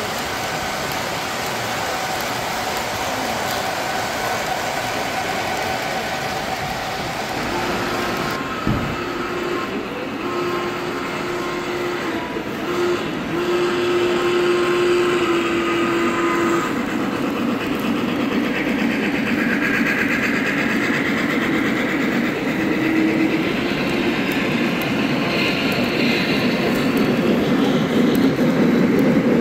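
Three-rail O-gauge model trains running on a layout, wheels rumbling and clicking along the track. A steady pitched hum sounds from about eight seconds in.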